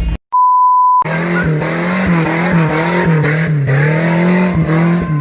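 A short cut to silence, then a high steady beep of under a second, like an edit bleep, then a vehicle engine revving up and down over and over.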